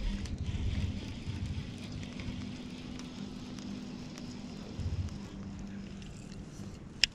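Baitcasting reel being cranked in during a lure retrieve, with wind rumbling in gusts on the action camera's microphone. A sharp click comes near the end.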